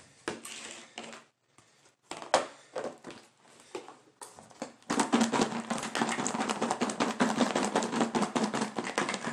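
Chicken nuggets in sauce being shaken hard inside a lidded plastic food container, making a fast, dense rattle that starts about halfway through. Before that come a few scattered clicks and taps as the plastic lid is pressed on.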